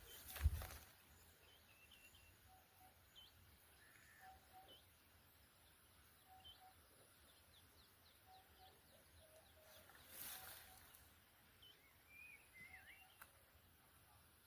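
Faint birdsong outdoors: scattered short chirps and whistled notes from several birds, some high and some lower and repeated. A low thump comes just after the start, and a brief rush of noise about ten seconds in.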